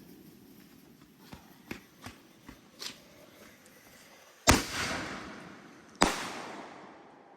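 Consumer fireworks going off: a few small sharp pops, then two loud bangs about a second and a half apart, each followed by a long fading echo.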